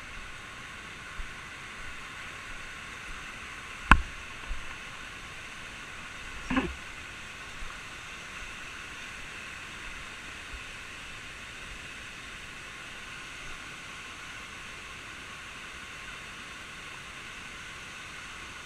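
Steady rushing hiss of a waterfall. A sharp knock about four seconds in and a duller thump a couple of seconds later, likely rappelling gear or handling.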